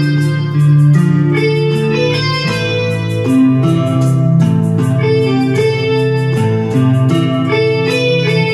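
Electronic keyboard being played by hand: chords and melody notes over sustained low bass notes, the harmony changing about once a second.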